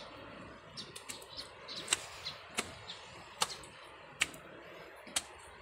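Footsteps on stone steps: sharp taps at about a walking pace, roughly one a second, over a steady background hiss.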